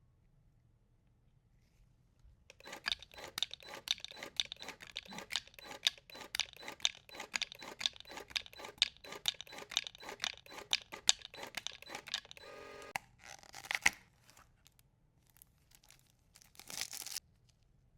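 Plastic packaging of a Pokémon card deck being torn and crinkled open in quick repeated strokes for about ten seconds. Then comes a short steady rasp, a sharp snap and a last brief rustle.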